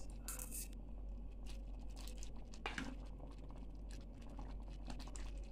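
A plastic ladle stirring thick beef stew in a pot, with faint, scattered soft clicks and taps against the pot.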